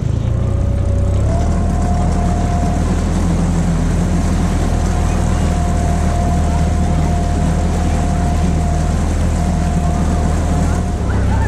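Tohatsu 15 hp outboard motor pushing a small rib along at steady cruising throttle. Its revs step up a little about a second in and then hold even, with a steady whine over the engine note.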